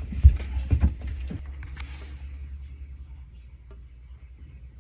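A few sharp knocks and clicks from a push-fit pipe coupling being pushed onto copper pipe and handled, the loudest about a third of a second in, then fading to faint handling noise.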